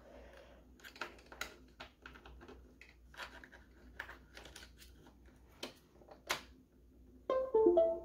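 Scattered light clicks and taps as a USB cable plug is handled and pushed into a port on a USB-C docking station. About seven seconds in, the laptop plays its short device-connected chime of a few stepped notes, the sign that the plugged-in USB 3.0 hard drive has been detected.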